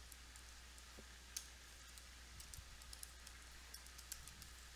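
Faint, scattered keystrokes on a computer keyboard, one sharper tap about a second and a half in, over a low steady hum.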